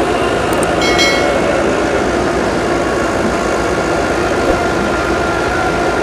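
Tractor-powered wheat thresher running steadily under load: the tractor engine drumming and the belt-driven threshing drum whirring as wheat stalks are fed in. A brief high ringing note sounds about a second in.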